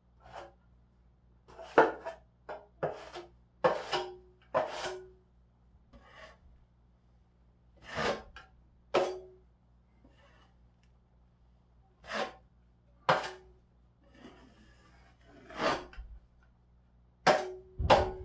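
Drywall knife scraping and smoothing joint compound over a drywall patch in short, irregular strokes, several ending with a brief ringing tone.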